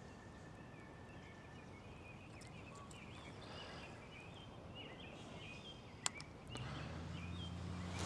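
Faint outdoor ambience with small birds chirping over and over. A single sharp click comes about six seconds in, and soon after a low steady hum starts.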